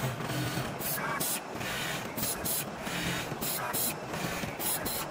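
Automatic pattern sewing machine running, its sewing head stitching along a template, with a steady mechanical whirr. Short sharp hisses break in repeatedly, mostly in pairs about every second and a quarter.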